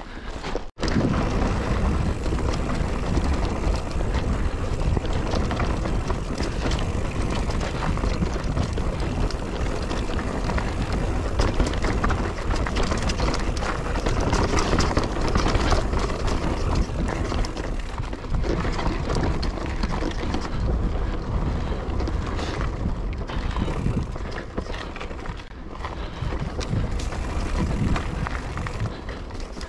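Mountain bike riding a rough dirt trail: tyres rolling and crunching over the ground, with the chain and frame rattling over bumps and wind rushing across the action camera's microphone.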